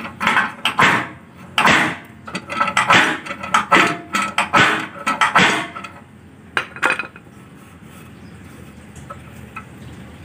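Steel G-clamp being tightened with a hand tool, metal clinking and clanking roughly twice a second as the tool is worked around the clamp screw; the clamp is pulling a bent bumper bracket back out straight. The clanking stops about seven seconds in.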